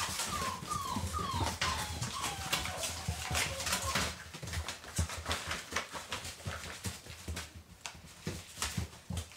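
Puppies play-fighting: a string of short whimpers in the first couple of seconds, each sliding down in pitch, over scuffling paws and the rustle of paper being tugged and torn.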